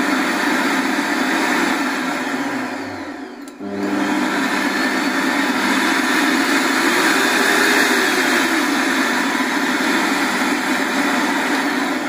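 Zelmer Aquawelt 1600 W washing vacuum cleaner's motor running loud and steady, now working after a repair for not switching on. It drops out briefly about three and a half seconds in, comes straight back up at a higher power setting, and starts to wind down near the end.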